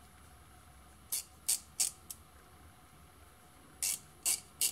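Snap-on hard-handle roto-head ratchet clicking as it is worked by hand: a group of four sharp clicks about a second in and three more near the end, the mechanism still working.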